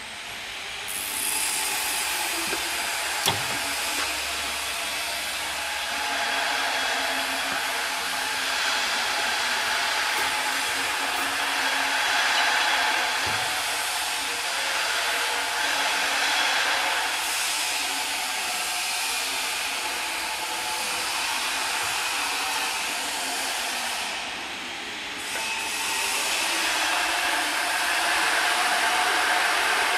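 Steady whirring hiss of running dairy processing machinery (pumps and motors of a milk pasteurizing plant). It eases briefly about 24 seconds in.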